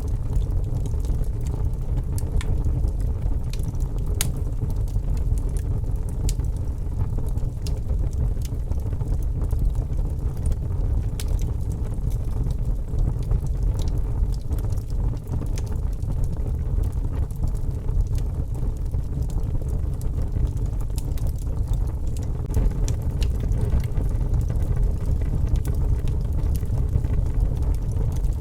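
Wood fire crackling with scattered sharp pops, over a steady low rumble of snowstorm wind.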